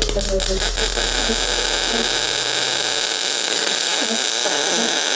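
MIG welder arc crackling and hissing steadily through one continuous weld, plug-welding thin sheet steel of a rocker panel cover to the sill.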